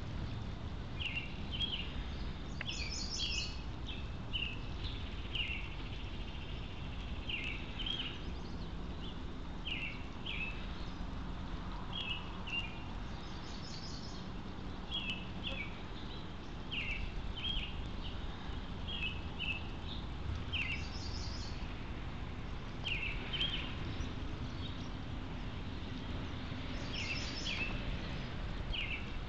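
Songbirds chirping repeatedly in short two- and three-note calls, with a higher trilled phrase returning every several seconds, over a steady low background rumble.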